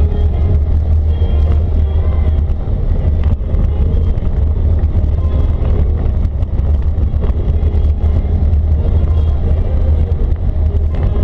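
ATV engine running steadily at cruising speed on a gravel road, under a heavy, even low rumble.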